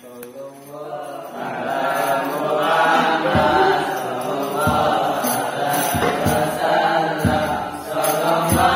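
Group of male voices chanting together in unison, rising in from a quiet start, with a low thump about every second and a quarter from a few seconds in.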